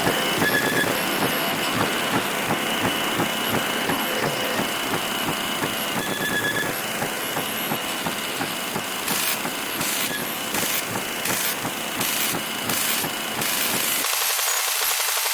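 Television with a poor signal giving out loud, steady static hiss with a faint high whistle. About two thirds of the way in the hiss pulses on and off several times, and near the end it thins as the low part drops away.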